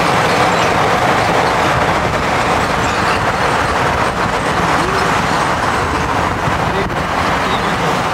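Steady road and engine noise heard from inside a moving vehicle's cabin.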